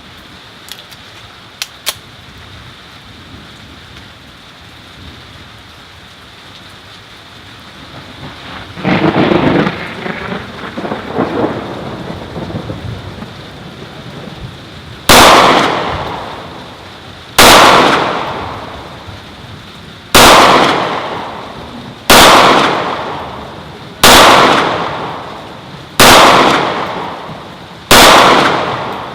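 Steady rain hiss, then a rolling thunder rumble about nine seconds in that lasts a few seconds. From about halfway, gunshots ring out about every two seconds, eight in all, each echoing and fading out over a second or two.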